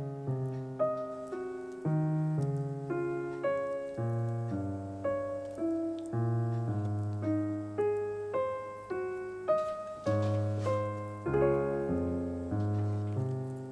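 Background piano music: a slow, gentle melody of struck notes and chords, each ringing and fading before the next.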